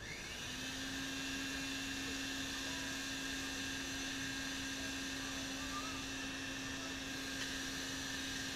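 Electric blower feeding air to a forge through a flexible hose, switched on and spinning up within about half a second, then running steadily with a constant hum and whine.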